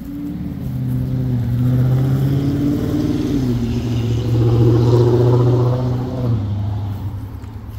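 A motor vehicle engine running close by. Its pitch is steady and drops in two steps, about three seconds in and again about six seconds in.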